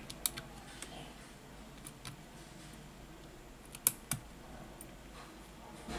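Light, sharp clicks of metal tweezers against the small screws and metal parts of a Samsung Galaxy S10+ midframe, about six scattered ticks, with the two loudest close together about four seconds in.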